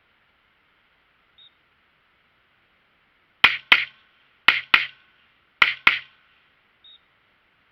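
Gunshots from a 300 Blackout rifle and a Glock 17 pistol: six shots in three quick pairs, the shots in each pair about a quarter second apart and the pairs about a second apart.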